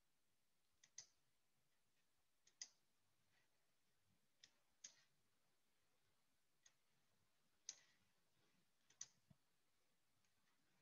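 Faint clicking over near silence: short sharp clicks, some single and some in quick pairs, every second or two.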